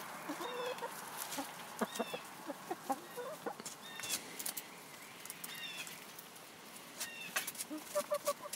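A flock of hens clucking softly while scratching and pecking in compost, giving short high calls every second or so and a quick run of clucks near the end.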